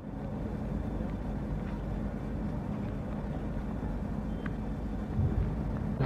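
Steady low rumble and noise of ship ambience on an old archive film soundtrack, with a single thump about five seconds in.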